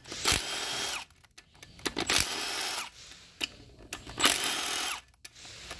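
Milwaukee cordless driver with a socket extension backing out the 10 mm pump bolts of a Ford 6R80 transmission. It runs in three short bursts of about a second each, with pauses between them.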